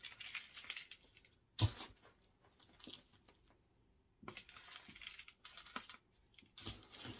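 Rustling and scraping of hands working a freshly repotted plant, its leaves and potting soil, in three short spells, with one sharp thump about one and a half seconds in.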